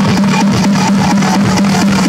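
Music played very loud through a car audio system's wall of large subwoofers and speakers: a strong, held bass note under a fast, steady beat. The recording is distorted because the camera's audio is overloaded.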